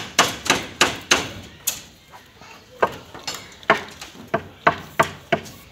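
About a dozen sharp metallic knocks and clinks on steel reinforcing bars, each ringing briefly, in an uneven run of two or three a second with a short pause near the middle: rebar being worked and tied on a slab mat.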